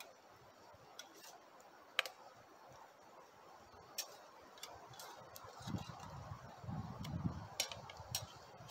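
Scattered sharp clicks and ticks at uneven intervals, from cooking at a campfire with a fork in a small metal skillet, over a faint hiss; a low rumble joins about halfway through.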